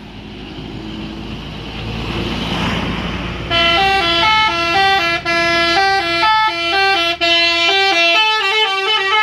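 A bus engine running and growing louder, then about three and a half seconds in a multi-tone telolet bus horn starts playing a loud stepping melody of several notes at once, broken twice by short gaps.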